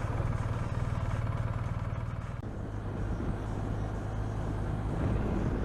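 Motorcycle engine running on the move, heard from the rider's seat with road and wind noise. The engine note changes and the level dips about two and a half seconds in, then builds again toward the end.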